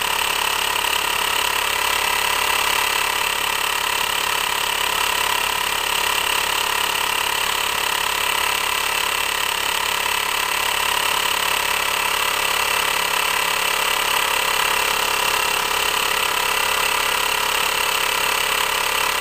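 Homemade 10cc rhombic-drive Stirling engine, pressurized to about 15 psi, running steadily at about 2,100 rpm while driving a small generator under load.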